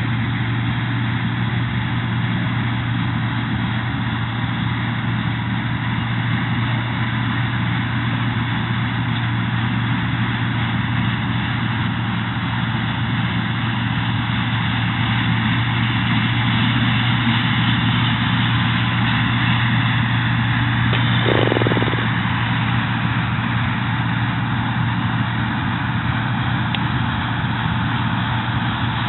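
Claas Dominator 80 combine harvester running steadily, its engine and machinery making a constant drone with a strong low hum. A short extra sound, under a second long, rises over it about three-quarters of the way in.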